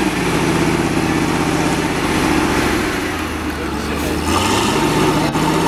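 Faun F2000C wheel loader's diesel engine running as the machine drives with a full bucket of sand. The engine note drops about halfway through, then picks up again about four seconds in.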